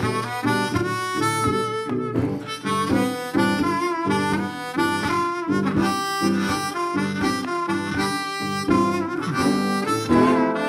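Background music: a blues tune led by harmonica, with guitar.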